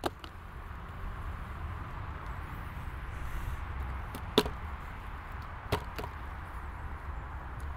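A few sharp clicks and knocks of a plastic Nassenheider formic-acid evaporator being lifted off a beehive and handled, the loudest about four and a half seconds in, over a steady hiss and low rumble.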